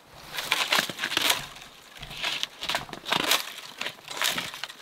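Footsteps through low brush, with shrubs and conifer branches brushing against clothing: irregular swishing and crunching several times a second.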